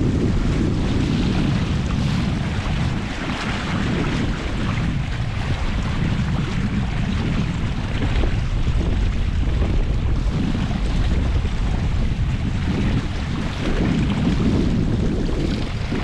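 Wind buffeting the microphone over a steady rush of water along the hull of a Catalina Capri 22 sailboat moving under sail in strong wind.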